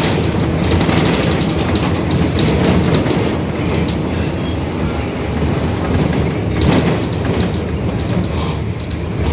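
Mercedes-Benz OF-1721 Bluetec 5 city bus under way, heard on board: its front-mounted four-cylinder diesel and road noise run steadily, with a droning differential and the Marcopolo Torino S body rattling throughout.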